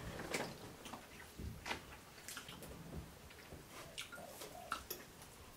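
Faint eating sounds at a table: chewing a forkful of rice and beans, with scattered soft clicks from mouths and forks.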